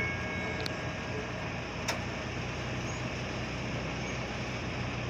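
Steady low rumble of idling road vehicles waiting at a railroad crossing, with one sharp click about two seconds in.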